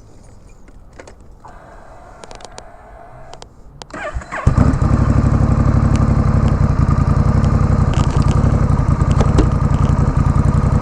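Honda Rebel 1100's parallel-twin engine, with its muffler removed so it runs straight-piped, cranked on the starter about four seconds in. It catches at once and then idles steadily and very loud.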